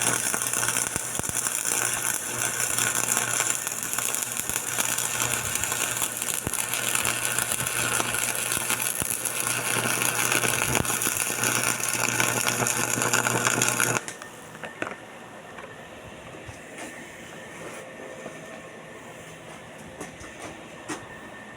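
Stick-welding arc from a 308L-16 stainless electrode, crackling and sizzling steadily over a low electrical hum. The arc breaks off suddenly about fourteen seconds in, leaving a quiet background with a few faint ticks.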